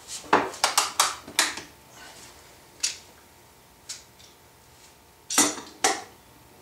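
Clamps knocking and clacking as they are set and tightened on a glued-up wood blank, with wooden handscrews being worked by hand. A quick run of sharp clicks comes in the first second and a half, single knocks near the middle, and two more near the end.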